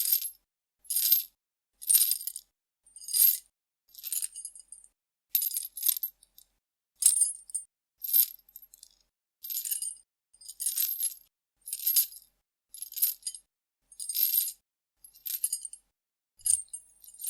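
Metal chain shaken and rattled in short jingling bursts, about one a second, with silence between each.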